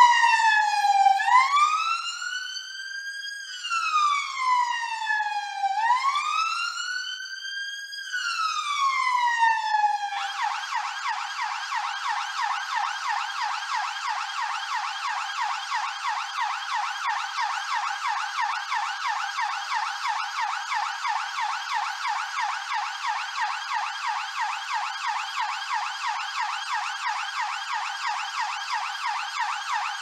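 London police car siren sounding a slow wail, its pitch gliding down and up about every two seconds. About ten seconds in it switches to a fast yelp that warbles several times a second.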